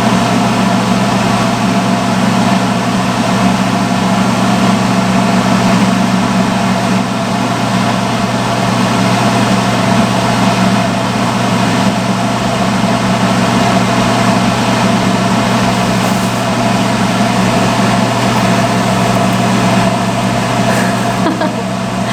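Salon hood hair dryer running: a loud, steady blower noise with a low hum.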